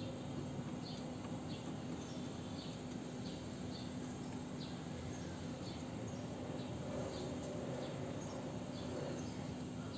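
Steady background noise with a low hum, and faint short high chirps recurring about once a second. There is no horn blast.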